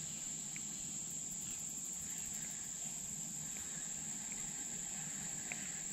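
Steady, high-pitched drone of an insect chorus, unbroken throughout, with a few faint brief chirps.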